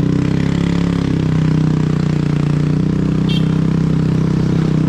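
Aprilia 125 cc scooter's single-cylinder engine running with its silencer removed, a loud, steady open-exhaust drone with rapid firing pulses.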